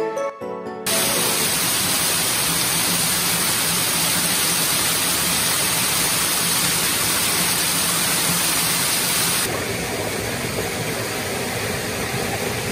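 Small waterfall cascading over rock ledges: a steady rushing of falling water. About nine seconds in, it cuts to a slightly softer, duller water sound.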